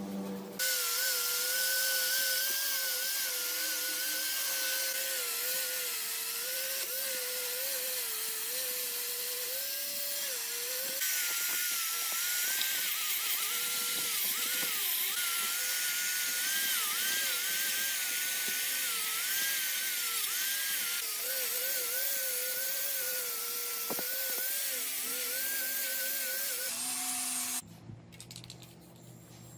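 An electric power tool runs with a steady whine that dips and wavers as it is loaded, over a bright hiss. It starts just after the beginning and cuts off abruptly near the end.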